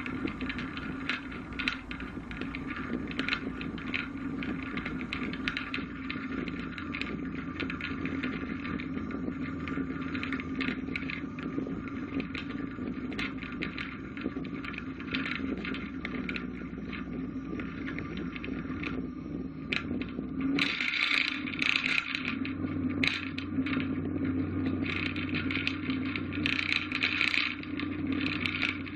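Light single-engine plane's piston engine running steadily, heard from inside the cockpit, with many small rattles and clicks. About two-thirds of the way through the engine note steps up and grows louder as power is added to climb away from the runway for a go-around.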